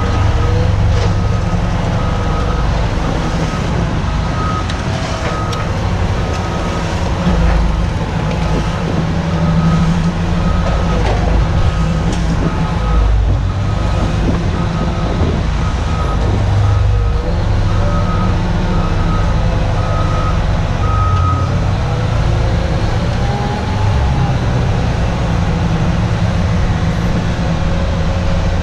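Heavy diesel construction machinery running steadily under load, with a backup alarm beeping at a regular pace; the beeping stops about three-quarters of the way in while the engine carries on.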